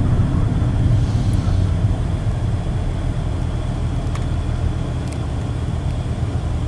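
Steady low engine and road noise inside a moving car's cabin, easing off slightly as the car slows.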